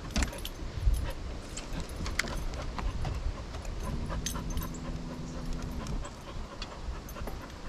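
A dog panting, with scattered light clicks and knocks. About halfway through, a steady low hum sounds for about two seconds and then stops.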